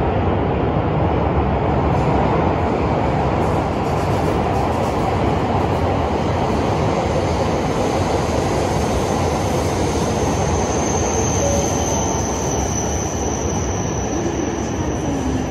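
Shinkansen train, with E5-series cars, running along the platform track of an underground station: a steady, loud rumble of wheels on rail, echoing in the enclosed station. A thin high whine comes in about ten seconds in.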